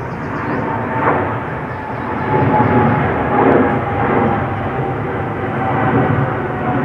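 Aircraft engine droning overhead, a steady hum that falls slowly in pitch over a loud, dense rushing background.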